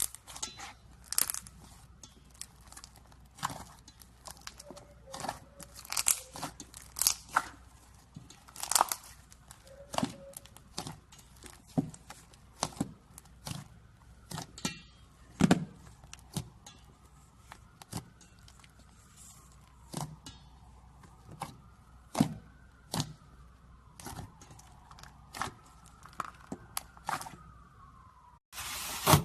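Slime being squeezed and pressed by hand, giving irregular crisp crackles, crunches and small pops.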